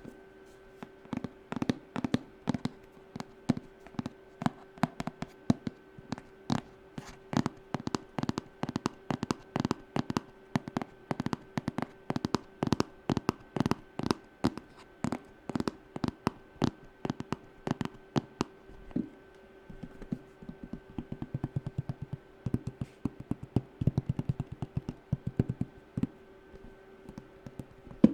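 Fingernails tapping on a hard object in quick, sharp clicks, a few a second, breaking into faster, denser flurries about two-thirds of the way through, over a faint steady hum.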